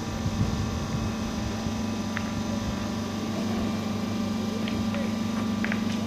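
A steady low mechanical hum, with a few faint clicks about two seconds in and again near the end.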